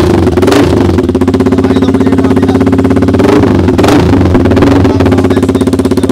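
Yamaha R15M's 155 cc single-cylinder engine running loudly through an Austin Racing aftermarket muffler held by hand on the bend pipe, with a steady fast exhaust pulse and a few short throttle blips. The owner calls the sound fierce.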